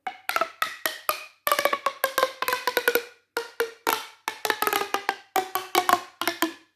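Mini pop tubes, corrugated plastic fidget tubes, being pulled out and pushed together, their ribs snapping through in about five quick runs of clicky pops with a hollow ringing tone.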